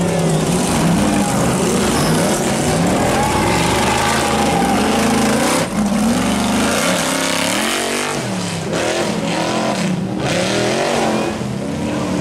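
Rock-bouncer buggy engines revving hard under load as they climb rock. The pitch rises and falls in quick repeated blips through the second half.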